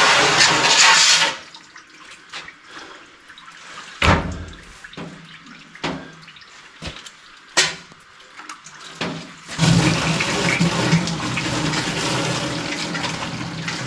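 Water from a hose fed by a big tank pouring into a plastic water container: a strong gush, then a few seconds of weaker flow broken by several sharp spurts, then a steady pour again from about ten seconds in. The flow sputters because air is still coming through the line.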